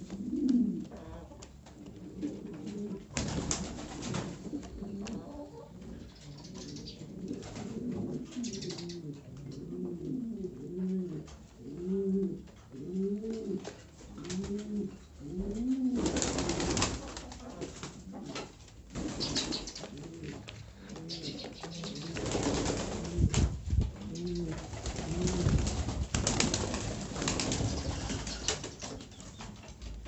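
Fancy domestic pigeons (King and French Mondain breeds) cooing, a run of short, low, rising-and-falling coos about twice a second. Stretches of broad noise come and go between them.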